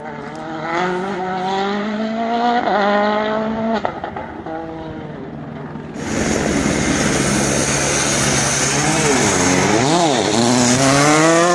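A rally car's engine climbs through the gears in the distance, its revs rising in steps. About halfway through, a Volkswagen Polo R WRC's turbocharged four-cylinder is heard close by, over a loud rush of noise: its revs drop and swoop back up sharply, then climb again as it accelerates away.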